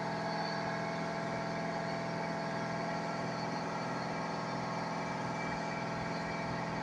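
Steady electric machine hum: several unchanging tones layered together with a faint high whine, holding without a break.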